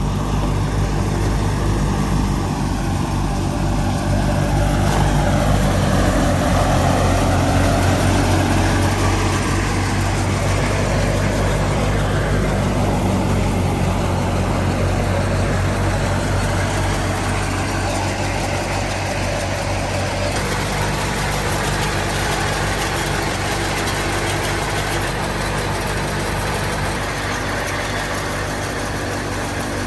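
Fiat 480 tractor's diesel engine running steadily under load, driving a wheat thresher. Over the engine's low hum, the thresher whirs, and its pitch slowly rises and falls.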